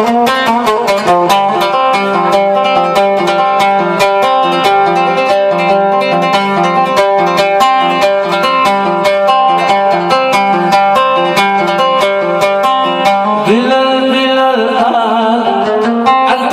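Oud played in a fast run of quick plucked notes, carrying a Yemeni song melody. About three seconds before the end, a man's voice begins singing over it.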